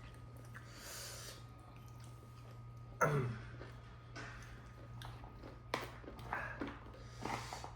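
Quiet mouth sounds of people eating panipuri: breathing and chewing, with a short voiced sound falling in pitch about three seconds in and a few soft clicks later, over a steady low hum.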